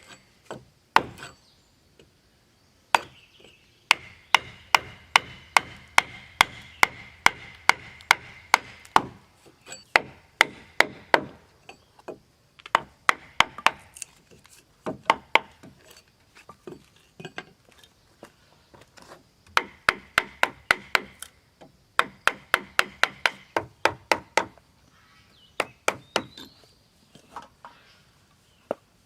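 A hand tool striking wood over and over, about three blows a second, in runs of several strokes broken by short pauses.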